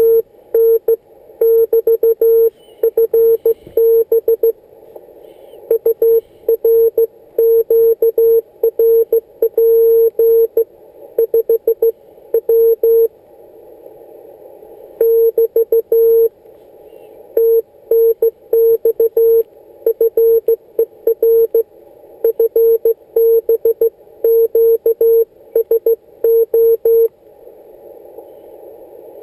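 Morse code (CW) tone from a Yaesu FT-817ND transceiver: one steady tone keyed on and off in dots and dashes, sent in groups with short pauses. A faint band of receiver hiss shows in the longer pauses, about halfway through and near the end.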